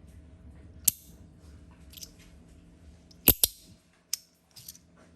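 Magnetic fidget slider being worked in the hand: its halves snap into place with sharp clicks, the loudest a quick double click about three seconds in.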